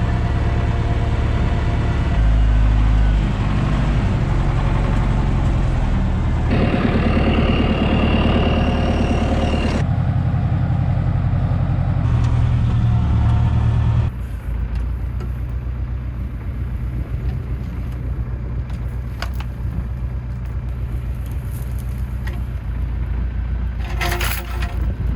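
An engine running steadily, its sound changing abruptly a few times. It becomes quieter and noisier a little past halfway, with a short loud noise near the end.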